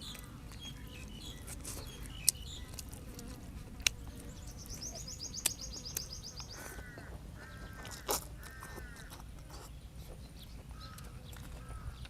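High-pitched chirping calls in the background: a fast trill for about two seconds near the middle, then several short arched calls, over a low steady hum. Four sharp clicks are the loudest sounds.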